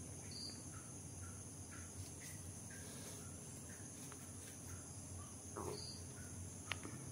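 Faint background: a steady high-pitched chirring and a low hum, with scattered short chirps and a sharp click near the end.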